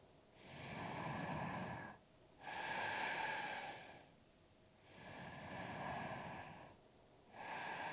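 Woman's slow, steady yoga breathing: four long breaths, each about a second and a half, with short pauses between.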